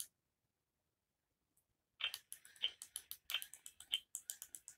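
Baby Alive Snackin' Sara doll playing its electronic eating sounds through its speaker as play food is held to its mouth: a quick run of crackly munching noises starting about two seconds in.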